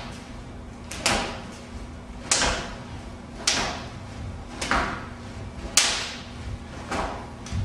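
Blows landing in a repeated drill, about one a second: open-hand strikes on a training partner's arm together with low shin kicks to the leg, each a sharp slap-like smack that echoes briefly in the room.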